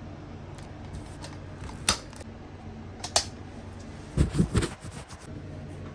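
Handling noise from a phone on a selfie-stick grip: a couple of sharp clicks, then a short burst of knocks as the rig is swung around, over a steady low hum.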